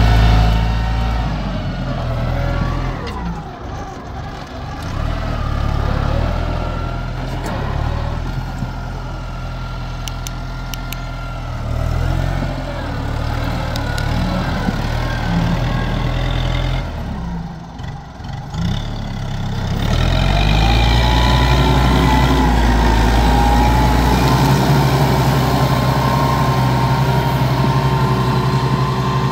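Farm tractor engine running under load while working a field, its note rising and falling. It drops away briefly a little past the middle, then runs louder and steadier for the last third.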